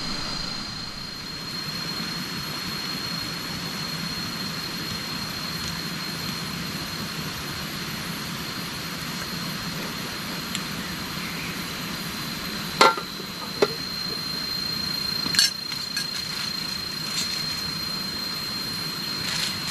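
Steady outdoor hiss with a constant high-pitched insect drone, broken by a few sharp knocks about two-thirds of the way through.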